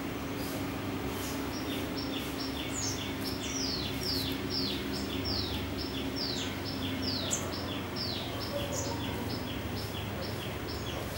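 Bird chirping in a rapid run of short, high notes that fall in pitch, several a second, starting about a second in and stopping near the end, over a steady low background hum.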